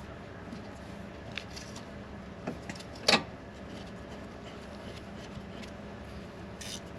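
Light clicks of hand tools and brake parts being handled, with one loud sharp knock about three seconds in, over a faint steady hum.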